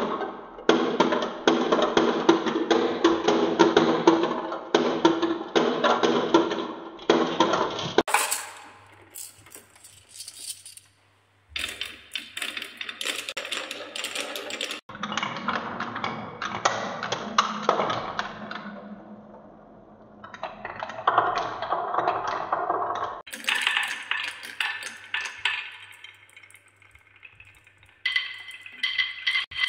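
Glass marbles rolling down wooden marble-run tracks: a dense rattle of many marbles rumbling along wavy wooden channels and clacking against the wood and each other. The rattle breaks off and restarts abruptly several times.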